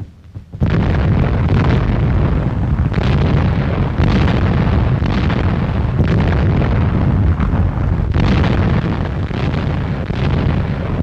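Anti-aircraft artillery firing in a heavy barrage: loud reports about once a second merge into a continuous low rumble, starting about half a second in.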